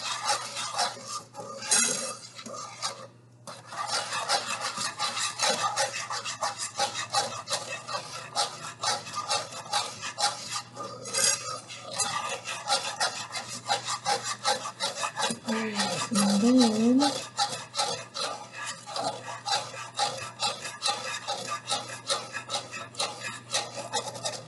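Wire whisk scraping and rattling fast against the bottom of a nonstick frying pan, whisking a hot melted-butter mixture on the stove, with a brief pause about three seconds in.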